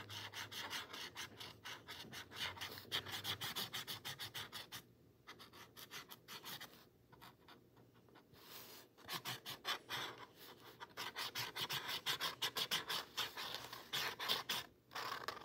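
Grey marker tip scratching across textured drawing paper in quick back-and-forth strokes, several a second, with a few short pauses in the middle.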